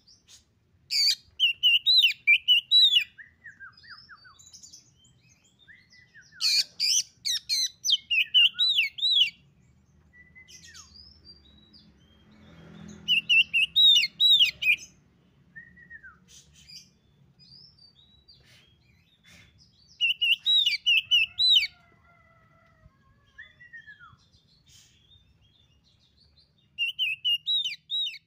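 Male Oriental magpie-robin singing: five loud phrases of rapid, looping whistles several seconds apart, with quieter single notes and short slurs between them.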